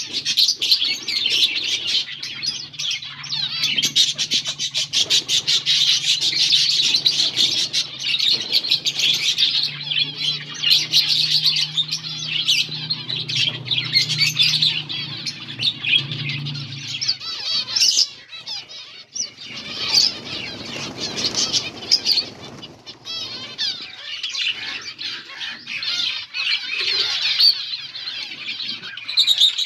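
A group of finches chirping rapidly and continuously with many overlapping high calls. A steady low hum runs under them for the first half, and there is a brief rustle about twenty seconds in.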